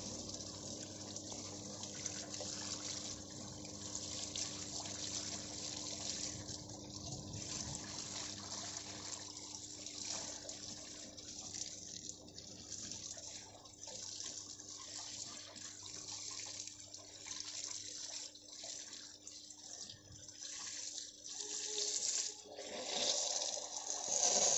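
Oil running and splashing in the open on-load tap changer compartment of a power transformer while a hand works inside it during cleaning, over a steady low hum. It gets louder near the end.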